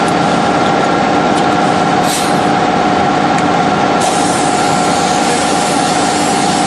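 Pneumatic steel strapping tool hissing with compressed air as it tensions a band around a stack of cut metal sheets. The hiss sets in about four seconds in, with a short puff about two seconds in. Underneath is a steady factory machinery drone with a few humming tones.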